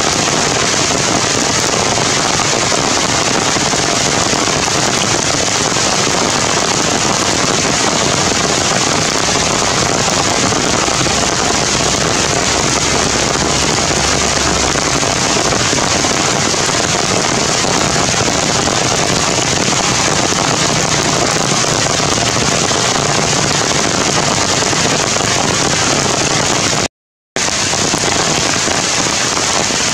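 Heavy rain falling steadily, a dense, even hiss that cuts out for a moment near the end.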